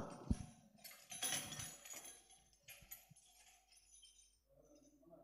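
Faint rattle of jingles and a few knocks from hadroh percussion instruments handled as the players stand up. The noise dies away after about three seconds.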